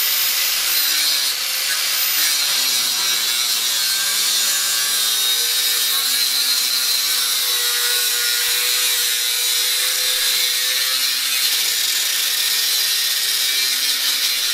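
Angle grinder cutting through a steel exhaust pipe where it joins the muffler, the disc grinding steadily with a high whine, dipping briefly about a second and a half in.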